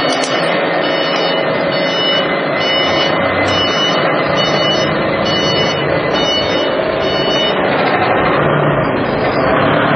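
Forklift engine running steadily while its reversing alarm beeps about every two-thirds of a second; the beeping stops about three-quarters of the way through and the engine runs on.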